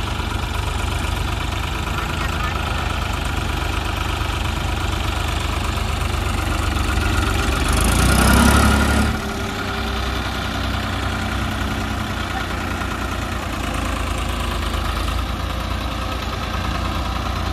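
Farm tractor diesel engines running steadily, with one engine revving up harder about eight seconds in and then dropping back sharply to a steady run about a second later.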